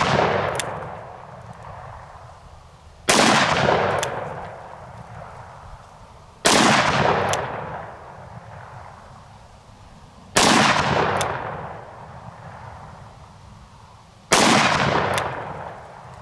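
Magnum Research BFR single-action revolver in .30-30 Winchester firing four shots, spaced about three and a half to four seconds apart, each a sharp crack followed by an echo that fades over a couple of seconds. The echo of a shot fired just before dies away at the start.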